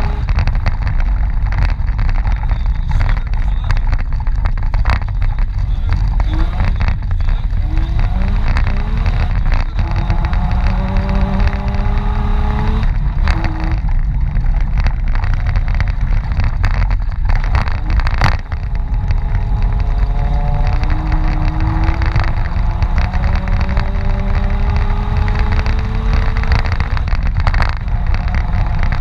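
Mitsubishi Pajero off-road rally engine revving hard through a snowy stage. Its pitch climbs, drops and climbs again as it accelerates and shifts. Frequent knocks and rattles come through over the rough going.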